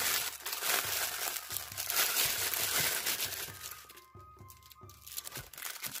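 Plastic packaging crinkling as small bags of numbered diamond-painting drills are handled, dense for about three seconds and then dying away, over light background music.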